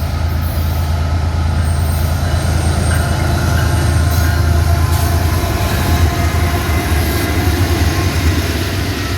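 Empty coal train passing close by: the diesel locomotives' engines give a steady low drone over rolling wheel and rail noise, a little louder around the middle.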